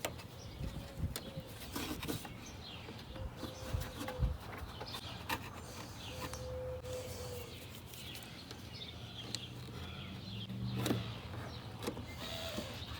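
Faint, scattered clicks and knocks of handling work on the mower, with birds chirping in the background; no engine is running.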